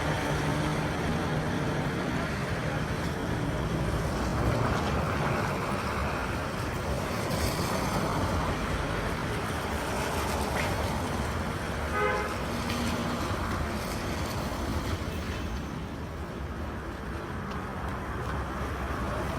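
Street traffic noise: vehicle engines running and passing, with a short horn beep about twelve seconds in.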